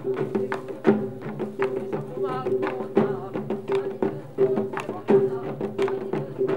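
Korean pungmul (farmers' band) music: hand drums and gongs struck in a driving rhythm, with a steady held tone underneath.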